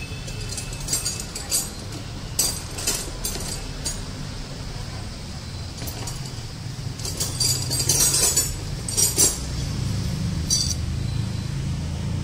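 Small metal parts of a Kawasaki Ninja's KIPS exhaust power-valve assembly clinking against each other as they are handled. The clinks come in scattered clusters, the loudest a little past the middle, over a steady low hum.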